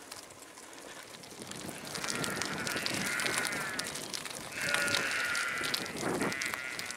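Sheep bleating: two long, wavering bleats, one about two seconds in and another near five seconds.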